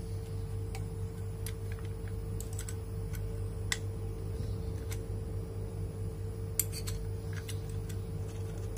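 Scattered small metal clicks and taps from a Stamvick hand riveter being handled at its nozzle end, the sharpest about halfway through and again a little later, over a steady low hum.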